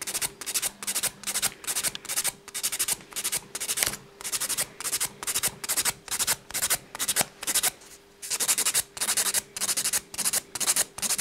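Hand nail file stroking back and forth over a dried acrylic nail, about two to three short strokes a second with a brief pause about eight seconds in. The acrylic is being filed level so the nail surface is even.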